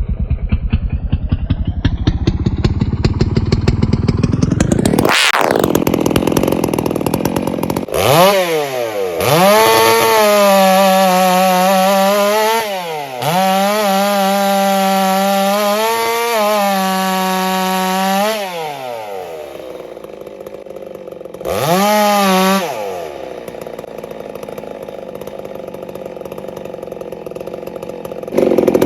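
The very first Neotec chainsaw, a two-stroke, running strong. It revs up over the first few seconds, then holds at high revs with a few brief dips for about ten seconds before dropping back to idle. There is one more short rev about two-thirds of the way through, and then it idles.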